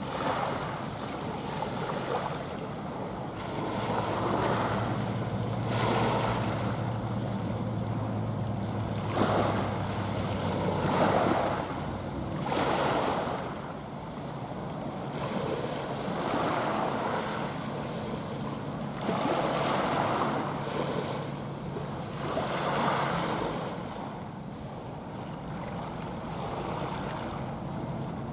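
Waves washing against the shore in repeated surges every two to three seconds, with wind on the microphone. A low engine drone comes and goes underneath.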